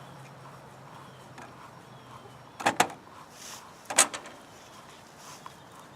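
Sharp metallic clicks and knocks from handling a chainsaw's bar, chain and tensioner while fitting them to the saw: two close together about two and a half seconds in, then one more a second or so later.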